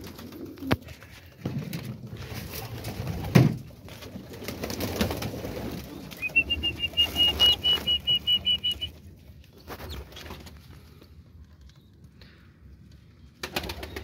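Pigeons cooing in a loft, with a few knocks from handling, the loudest about three and a half seconds in. About halfway through comes a run of high, evenly repeated peeps, about five a second for two to three seconds.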